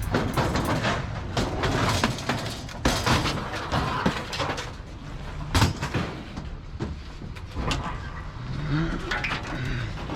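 Scrap metal clanking and clattering as pieces are handled and dropped, in irregular sharp knocks.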